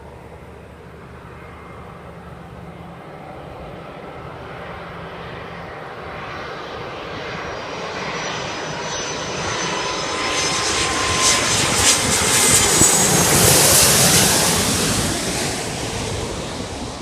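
Jet airliner flying past, its engine noise and high whine growing steadily louder, peaking near the end and then starting to fade.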